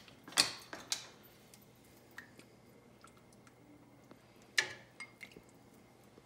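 A ladle clinking against a soup pot and a ceramic bowl as soup is dished up: a few sharp clinks with light ticks between, the loudest about four and a half seconds in.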